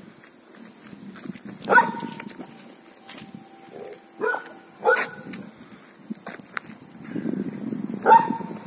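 A dog barking: four short, sharp barks spaced irregularly, one to three seconds apart.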